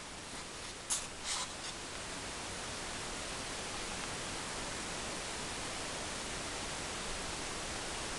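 Steady hiss, the recording's own background noise, with two short faint clicks about a second in.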